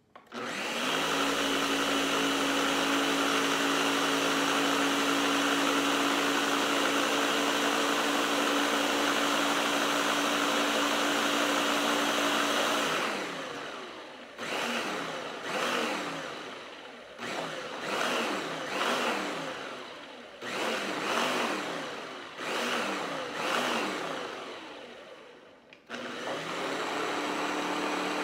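Countertop blender blending a thick mixture of mashed potato, eggs, milk and wine for potato punch. It starts about half a second in and runs at a steady speed for about twelve seconds. It then pulses in a run of short bursts, its pitch sweeping up and down with each, and runs steadily again near the end.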